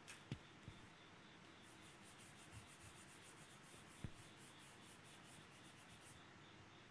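Faint pencil strokes on drawing paper, a quick back-and-forth hatching at about four strokes a second from about two seconds in, stopping near the end. A few soft knocks come near the start and one midway.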